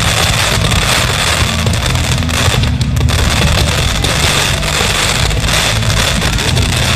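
Fireworks fired at close range: a dense, unbroken stream of crackling and popping from glittering aerial bursts and ground fountains, with music playing underneath.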